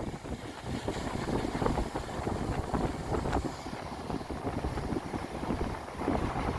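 Strong wind buffeting the microphone in uneven gusts, a rumbling, flapping rush.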